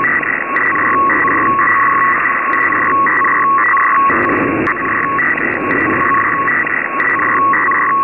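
Hiss narrowed like a telephone line, with two electronic data tones, one about twice the pitch of the other, keying on and off in a quick irregular pattern, like a dial-up modem sending data.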